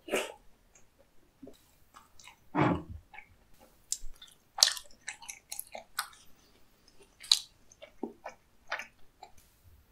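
Close-up chewing of a mouthful of food: irregular wet clicks and smacks of the mouth, with one longer, louder sound about two and a half seconds in.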